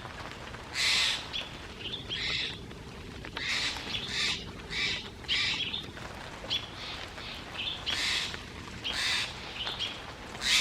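Steller's jay giving a run of harsh, rasping scolding calls, each under half a second, with shorter, softer notes between them: mobbing alarm calls aimed at a perched barred owl.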